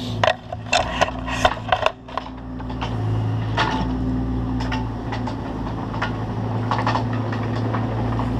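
Excavator engine running steadily, with scattered knocks and scrapes, most of them in the first two seconds.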